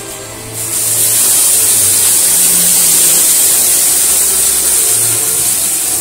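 Cordless stick vacuum cleaners, a Dyson V11 and a Gtech AirRam, running as they are pushed over carpet picking up rice: a loud, steady high hiss that comes in about half a second in and stops just before the end. Background music plays underneath.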